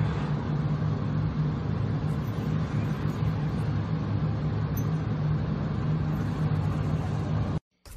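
Steady rumble and rushing air rising through a sidewalk subway ventilation grate as a train passes underneath, with a low hum under it; it stops abruptly near the end.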